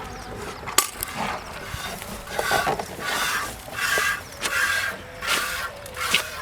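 A Murrah buffalo being milked by hand: milk squirting into a bucket in regular hissing spurts, a bit more than one a second, starting about two seconds in. A sharp click comes just under a second in.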